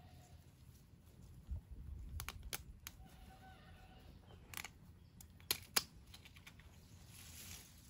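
Small knife cutting through celery stalks at the base of the plant: about six sharp, crisp clicks and snaps spread over a few seconds, the loudest two close together past the middle.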